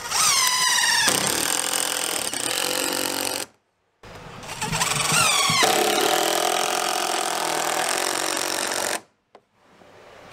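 Cordless drill driving two long wood screws through 2x4 blocking into the floor framing, one after the other. Each run lasts a few seconds: the motor's whine drops in pitch as the screw bites, holds steady while it drives, then cuts off suddenly.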